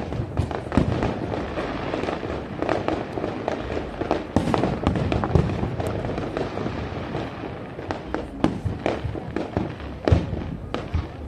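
Aerial fireworks show: shells bursting in quick succession over a dense crackle, with a particularly sharp bang near the end.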